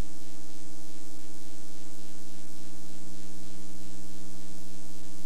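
Steady electrical hum and buzz under a layer of hiss, unchanging throughout: a noise fault on the recording's audio track rather than any sound in the scene.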